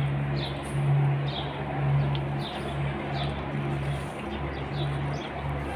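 Small birds chirping, short falling chirps repeating about once a second, over a low steady hum that swells and fades.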